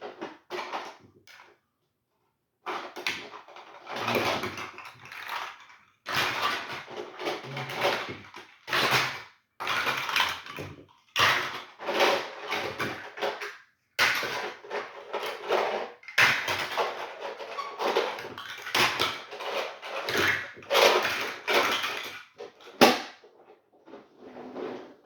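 Hard objects being handled and rummaged through: a long run of clattering, knocking and rattling with short pauses, starting after a brief silent gap near the start.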